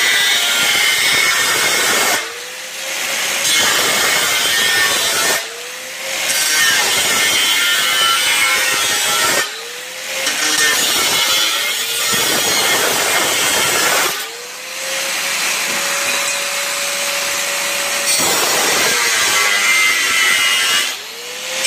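An angle grinder with a thin cut-off disc cuts sheet steel for a rust-repair patch panel with a loud, grinding hiss. About five times the disc comes out of the cut for a moment, and the motor's whine rises as it spins up unloaded before the cut resumes.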